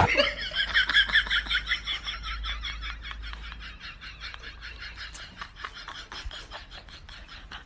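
A fast run of short, high-pitched laughs, several a second, loudest at the start and slowly fading away.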